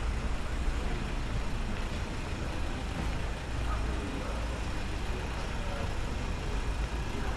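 Street ambience: a steady low rumble of city traffic with faint voices of people nearby.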